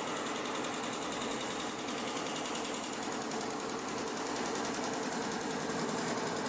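ShengMing multi-head embroidery machine running, its heads stitching in a steady stream of rapid needle strokes.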